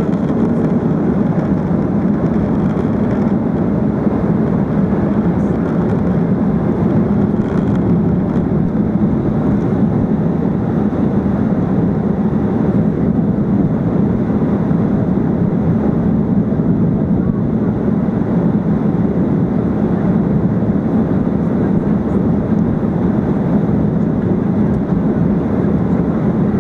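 Boeing 737-800 cabin noise: the jet engines running and the rushing air heard from inside the cabin as a deep, steady rumble that does not rise or fall.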